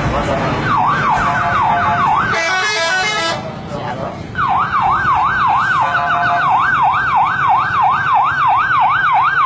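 A bus's telolet horn sounding a fast rising-and-falling warble, about two and a half swoops a second, in a short burst and then a longer run, over the low rumble of an engine. A short hiss sounds between the two bursts.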